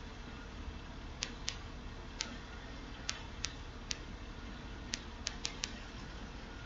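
Sharp, irregularly spaced computer mouse clicks, about ten in all, with a quick run of four about five seconds in, over a steady low hum.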